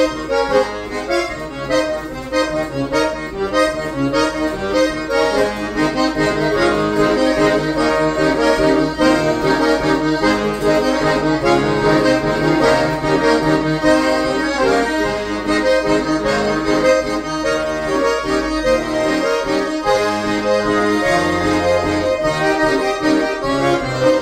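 Two piano accordions playing a tune together, a melody with chords over changing bass notes, with a few longer held bass notes near the end.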